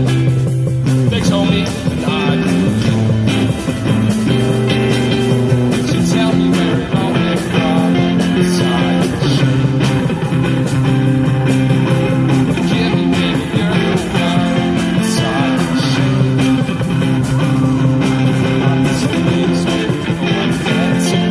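Street band playing live: guitar, clarinet and plastic bucket drums, with held chords changing every second or two over a dense, steady bucket beat.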